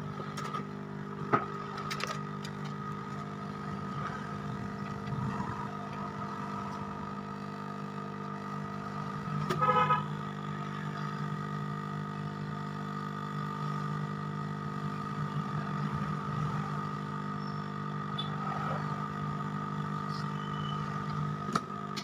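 Hot air rework gun's blower running steadily, a humming, whining tone, as it heats a phone board's charging jack for desoldering. A brief louder tone sounds about ten seconds in.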